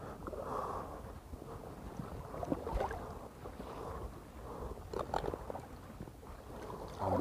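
Faint sloshing of shallow seawater as a wader reaches into it with gloved hands, with a few small splashes and drips around the middle.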